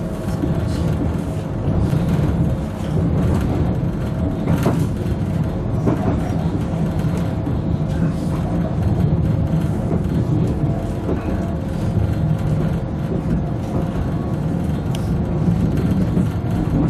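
Inside a DB class 646 diesel railcar running along the line: a steady low rumble of engine and wheels on the rails, with a few faint steady tones above it and occasional light clicks from the track.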